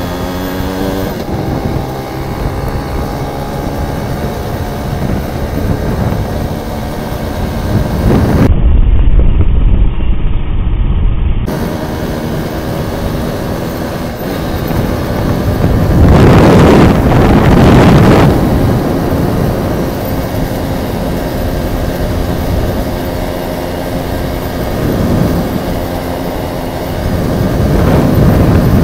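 Yamaha Y15ZR motorcycle engine running while riding, heard from the rider's position, its pitch climbing and changing in the first second or so. Loud rushes of wind on the microphone come about a third of the way in and again a little past halfway.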